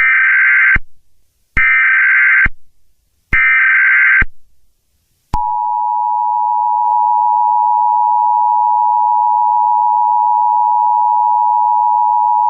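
Emergency Alert System tones: three short bursts of SAME header data, each a harsh digital screech under a second long, then about five seconds in the steady two-tone EAS attention signal.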